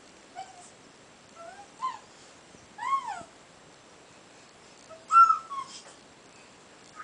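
A nine-month-old baby making short, high-pitched squeals that slide up and down in pitch, about five of them spread out, the loudest about five seconds in.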